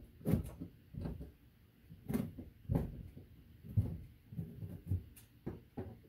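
Screwdriver working the mounting screws of a ceiling light fixture: irregular light clicks and knocks, about one or two a second, as the tool and fixture are handled.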